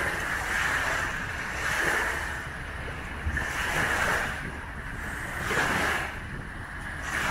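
Small wind-driven waves of the Swan River washing onto the shore, swelling and falling back about every two seconds, with a low rumble of wind on the microphone.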